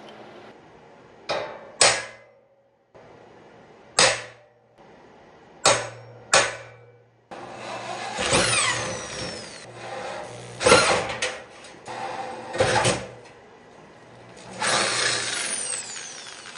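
A few sharp metal knocks, then an electric drill boring through steel plate with a twist bit. The drilling grows and eases in loudness, with a couple of high squeals that slide down in pitch.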